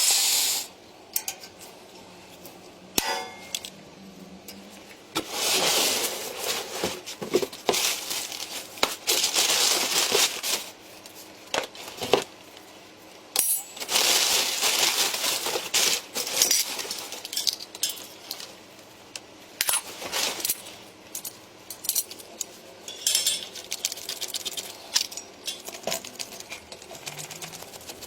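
Small hard metal parts clinking and knocking as they are handled. Several longer stretches of hissing, scraping noise come and go in between.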